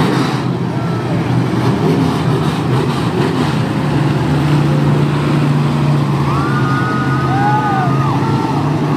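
A pack of IMCA SportMod dirt-track race cars with V8 engines running together at racing speed on a restart, a loud, steady engine roar. A steady low engine note grows stronger about four seconds in.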